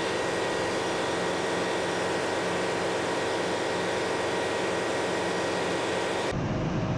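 Steady ship's engine-room machinery noise with the main engine stopped: a constant hiss and many unchanging hums from the running auxiliary machinery, such as the diesel generators.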